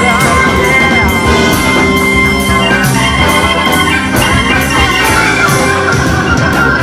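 Live band playing an instrumental passage at full volume, with drums keeping a steady beat under keyboards and guitar, heard from the audience in a large hall.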